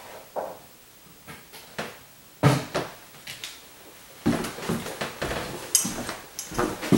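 Someone searching a kitchen cupboard for a mason jar: a cupboard door and things being moved about, a few separate knocks at first, then a busier clatter from about four seconds in.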